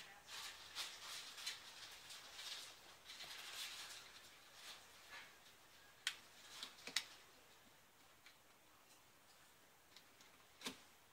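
Plastic opening tool scraping along the seam of a Nokia Lumia 520's plastic housing, with a few sharp clicks as the housing clips pop free one at a time. The scraping fills the first few seconds; the clicks come about six, seven and ten and a half seconds in.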